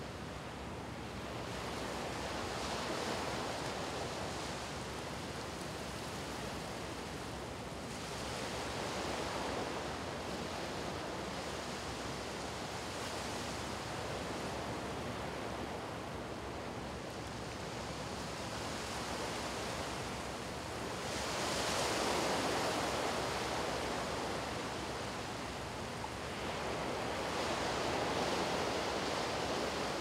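Small waves washing in over a flat sandy beach, a steady surf hiss that swells and fades in slow rolls. It is loudest about three quarters of the way through.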